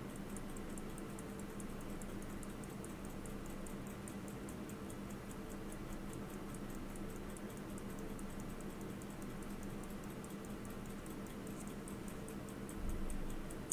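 Elgin hunter-case pocket watch movement ticking in rapid, even beats, its balance running freely while the pivots are freshly oiled.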